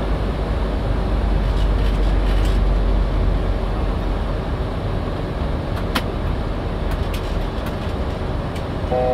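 Steady rush of airflow and engine noise in the cockpit of a Boeing 737-800 in flight, with a single click about six seconds in and a brief steady electronic tone starting near the end.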